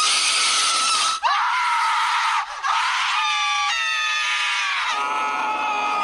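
Loud, harsh screaming with a sudden change about a second in; in the middle it turns into wails that slide down in pitch, holding steadier near the end.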